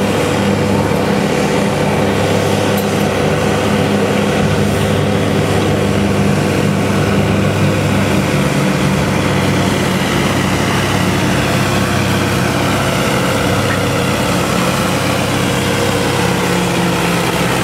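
Farmall 400 tractor engine running steadily under heavy load as it drags a weight-transfer sled.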